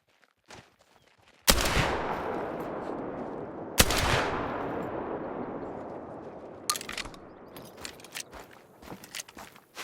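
Two gunshots about two seconds apart, each followed by a long fading echo, then several lighter clicks and knocks.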